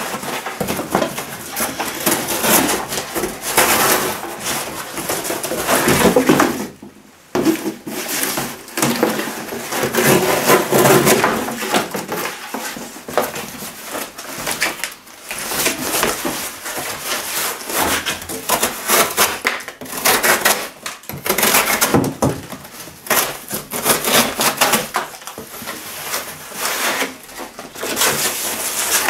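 Extrema Ratio Task C folding knife cutting and sawing through corrugated cardboard, with the board ripping and tearing as it goes: rasping strokes one after another, with a short break about seven seconds in.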